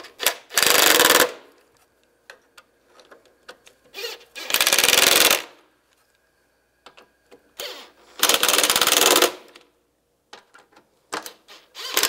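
Cordless impact driver snugging down the screws that hold the radiator cooling fan assembly: three bursts of rapid hammering, each about a second long, with small tool-handling clicks between them.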